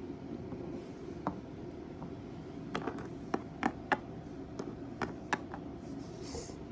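A series of light, sharp taps and clicks, about eight of them, bunched in the middle of the stretch over a low steady hum.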